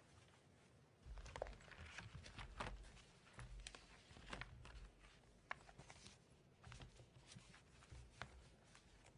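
Faint clicks, rustles and low bumps of papers being handled and set down at a lectern, starting about a second in.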